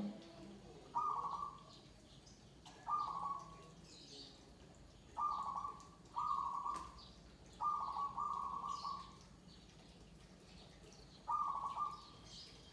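Zebra doves (perkutut) cooing: about six short rolling coo phrases, irregularly spaced, one of them longer than the rest. Faint higher chirping from other small birds runs underneath.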